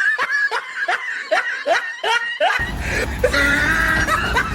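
Snickering laugh, a quick string of short "heh" syllables about three a second. About halfway through it gives way to a held pitched tone over a low hum.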